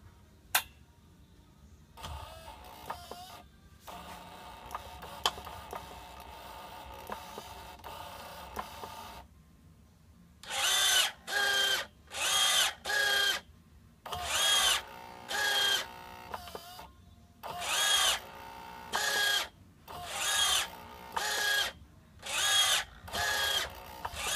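Electric servo actuators driving the throttle and mixture levers: a click, a steady whir for several seconds, then a run of short whining bursts, each about half a second long, rising and falling in pitch about once a second as the levers are driven back and forth. The throttle is moved by a windscreen-wiper motor converted to a servo with an encoder, and the mixture by a large model-aeroplane servo.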